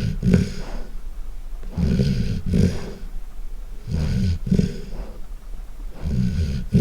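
Golden retriever snoring loudly in its sleep: a low snore about every two seconds, each in two quick pulses, with quieter breathing between.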